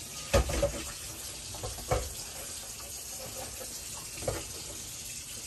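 Kitchen tap running steadily, with a few light knocks, the loudest just after the start.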